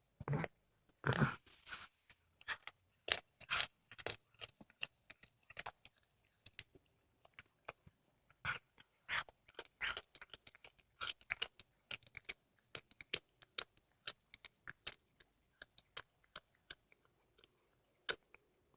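A cat chewing and crunching on a squirrel carcass: a rapid, irregular run of wet bites and sharp crunches that grows sparser near the end.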